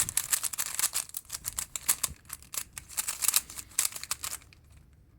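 YJ Guanlong 3x3 plastic speed cube being turned rapidly by hand: a fast, uneven run of light plastic clicks and clacks from the layers snapping round, stopping about four and a half seconds in.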